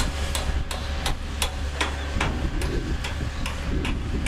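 Hammer blows from construction work, struck in a steady rhythm of about three a second, over a steady low rumble.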